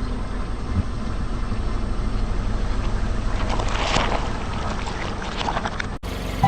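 Car running with a steady low rumble and wind on the microphone, with a spell of crackling crunches about four seconds in as a tyre crushes an object; the sound cuts off abruptly near the end.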